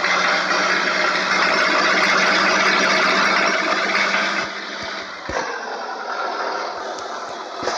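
A vehicle engine running close by: a steady hum under a loud rush of noise, which eases somewhat about four and a half seconds in.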